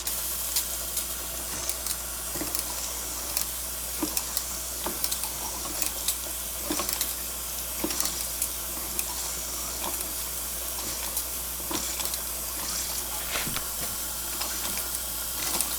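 Jensen live-steam toy boiler hissing steadily while it builds pressure, with irregular small pops and crackles, before the engine turns over.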